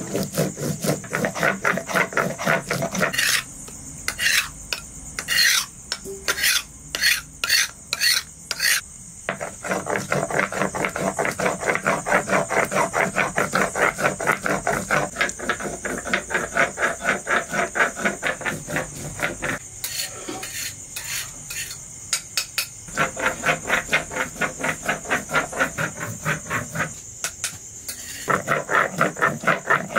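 Spice paste being ground on a sil-nora: the stone roller rubbing back and forth over the flat grinding stone in a quick, steady rhythm of several strokes a second. A few seconds in there is a stretch of slower, separate strokes, and later there are two brief pauses.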